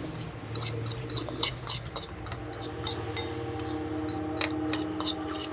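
Cutlery clinking and scraping against plates and dishes while eating, a scatter of light irregular clicks with one louder clink about a second and a half in, over a steady low background hum.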